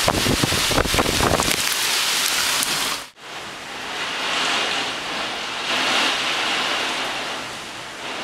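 Heavy thunderstorm rain pouring down, with a dense clatter of drops striking close by in the first second or so. After a sudden cut about three seconds in, the rain goes on as a steadier, softer rush heard from inside the house.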